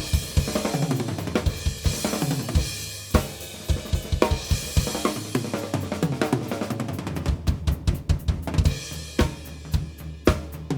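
Mapex Mars Pro drum kit with mahogany/maple shells played with the microphones on: snare, bass drum and hi-hat under ringing cymbals. About seven seconds in, the cymbals drop out and a run of drum strokes with low ringing tom tones continues.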